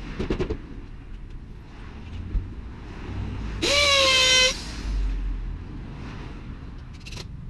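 Power drill whirring once for about a second, a little past the middle, rising quickly in pitch as it spins up and then holding steady, as it drives a screw for plywood window boarding. A few sharp knocks near the start.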